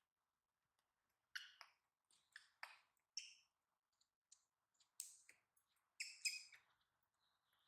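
A baby monkey's faint, short high squeaks, about eight of them at irregular intervals.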